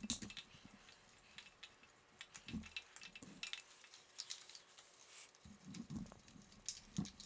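Faint scattered clicks and ticks of a hand screwdriver backing out small T20 Torx bolts from a motorcycle's electrical box, with a few soft low bumps of handling.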